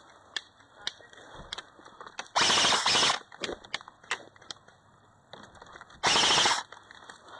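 Two bursts of full-auto airsoft gunfire, each under a second long, one about two and a half seconds in and another about six seconds in, with scattered sharp clicks of single shots between them.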